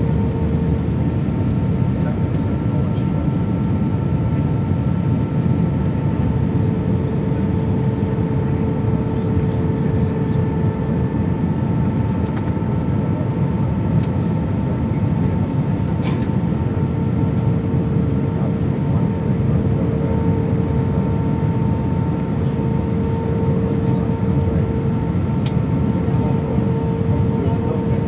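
Airliner cabin noise on approach: a steady roar of jet engines and airflow with a steady engine whine running through it. A few faint clicks.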